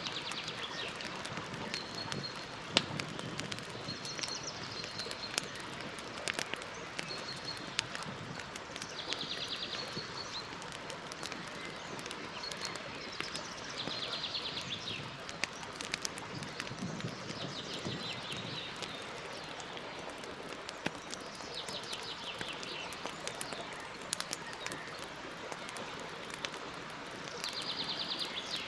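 Campfire burning with a steady hiss and frequent sharp crackles and pops, one pop much louder about three seconds in. A songbird sings short trilled phrases every four or five seconds.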